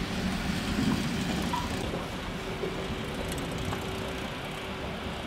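Steady hum and rushing noise of an indoor velodrome hall, with one faint steady tone throughout.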